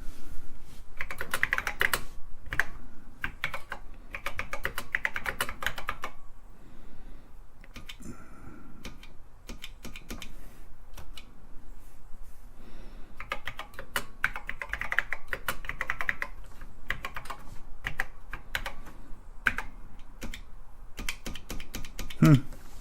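Typing on a TRS-80 Model I keyboard: runs of quick key clicks with short pauses between, as the keys are tested after the keyboard cable was replaced.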